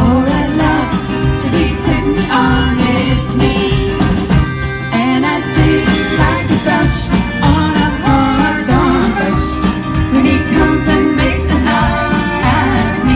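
Live band performance heard through the PA: electric and acoustic guitars over a drum kit, with a lead voice singing.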